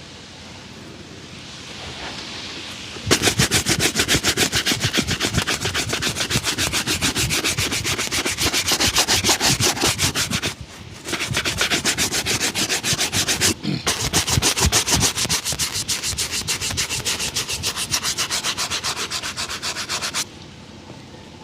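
A shoe being buffed by hand with fast, even back-and-forth strokes. The strokes start about three seconds in after softer rubbing, break off briefly twice, and stop near the end.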